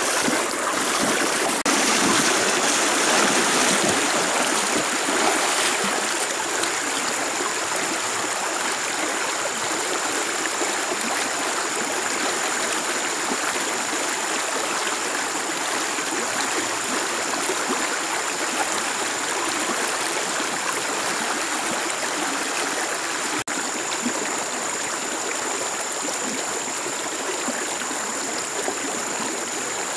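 Shallow river running fast over rocks: a steady rushing of water, a little louder for the first few seconds.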